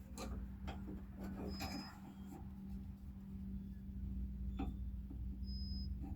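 Faint scattered clicks and taps of small metal door-latch rods and parts being handled inside a Jeep door, over a steady low hum.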